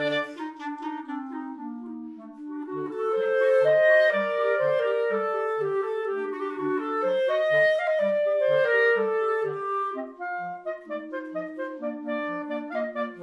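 Three B-flat clarinets playing a Spanish pasodoble in three parts: a melody over held harmony notes, with the lowest clarinet playing short detached off-beat notes about twice a second. The music grows louder about three seconds in.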